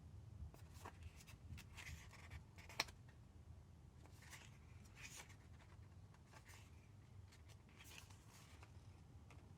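Faint paper rustling and soft brushing as the pages of a photo booklet are turned and handled, with one sharp click about three seconds in, over a low steady hum.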